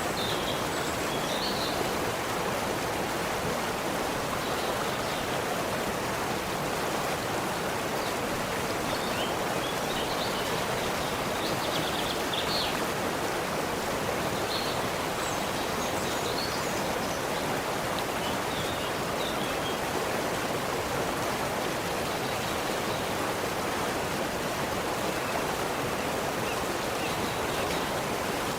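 A forest stream runs with a steady rush of water. Faint, high, short bird chirps are scattered over it, most of them in the middle stretch.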